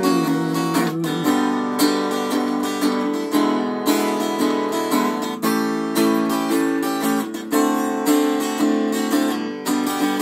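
Guitar strumming chords in a steady rhythm, about two strokes a second: an instrumental break with no singing.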